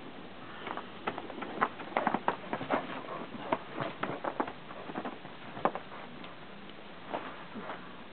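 Snow crunching in short, irregular crunches, dense through the first five or six seconds and sparser near the end.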